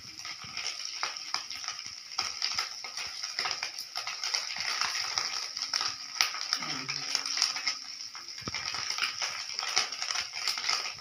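Small puti fish frying in hot oil in a steel karahi, sizzling steadily with many small crackles and pops. A metal spatula stirs them, clinking and knocking against the pan now and then, with one sharper knock near the end.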